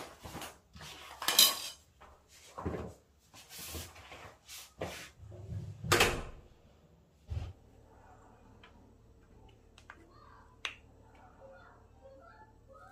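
Shoes being picked up and set down on a tiled floor: a run of knocks and scuffs, loudest about a second and a half in and again about six seconds in. After that only a faint steady hum and a few light clicks.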